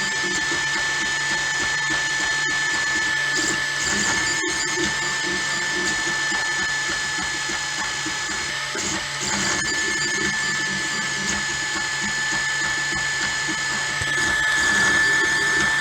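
Anycubic Mega S 3D printer at work, its stepper motors driving the print head and bed with a steady high whine over continuous mechanical whirring and clicking.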